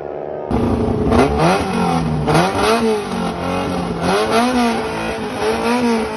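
Drag car's engine being revved in a series of quick blips, its pitch rising and falling several times, starting abruptly about half a second in.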